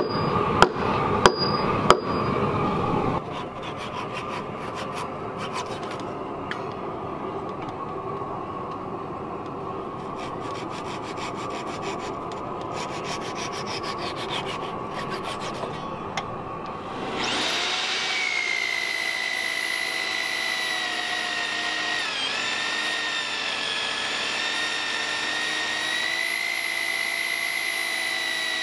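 A hammer strikes wood about four times in quick succession. Then a wide chisel pares the timber with a steady scraping rub, and a little past halfway a power drill with an auger bit starts up and runs steadily with a high whine, boring into a timber post.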